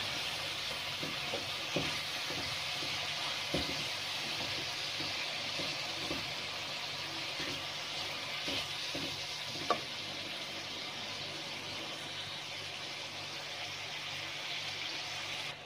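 Chicken pieces frying in hot ghee with ginger-garlic paste in a metal pan: a steady sizzle, with a few light ticks of a silicone spatula stirring, one a little louder about ten seconds in. The paste is being cooked through so its raw garlic taste goes.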